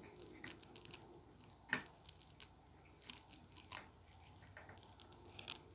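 Faint, scattered small clicks and light scrapes of hands working on a plastic guitar pickguard and its small screws and hardware, with one sharper click just under two seconds in.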